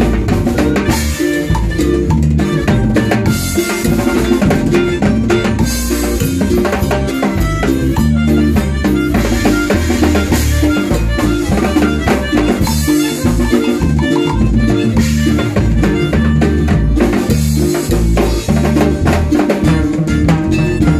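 A band playing loud dance music with a drum kit and a heavy bass line, keeping a steady beat.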